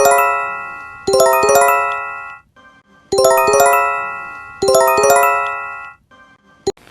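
Emergency alert chime tone: a multi-note electronic 'ding-dong' chime phrase sounding four times, each phrase's notes ringing out and fading over about a second, with a longer pause after the second.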